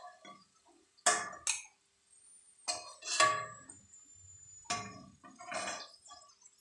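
Slotted metal spatula clinking and scraping against an aluminium pot of mustard oil while fried onion, garlic and ginger are lifted out, about six sharp hits, roughly in pairs.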